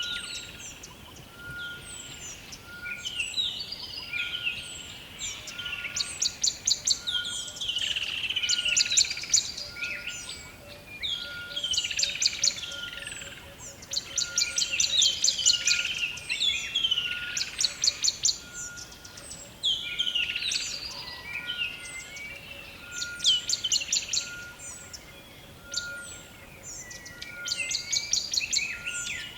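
Rainforest bird chorus: many birds calling over one another, with bursts of rapid high trills and down-slurred whistles. Beneath them a short steady note repeats about once a second.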